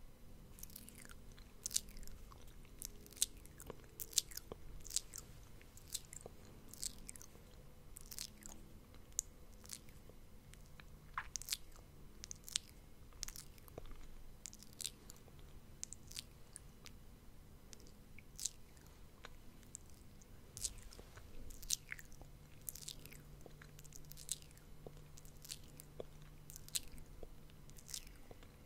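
Close-miked ASMR mouth sounds: irregular mouth clicks and lip smacks, a few each second.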